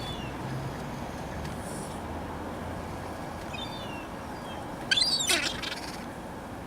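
Birds calling over a steady outdoor background: a few short, high, falling chirps, then one loud, harsh call about five seconds in.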